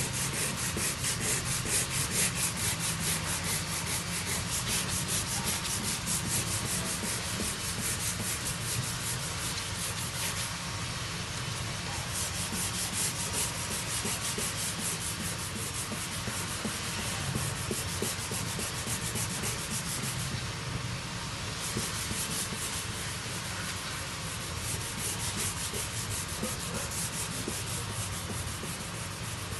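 Sandpaper rubbing over a Toyota Fortuner's plastic bumper in quick, even back-and-forth strokes, surface prep for body repair. The strokes pause briefly about ten seconds in and again about twenty seconds in.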